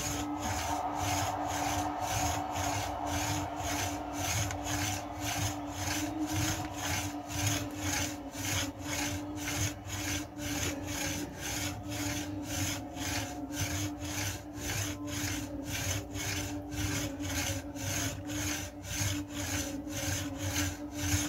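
A Bullworker's telescoping spring cylinder being compressed and released in quick repetitions, a rasping rub on every stroke, about two to three a second, over a steady low hum.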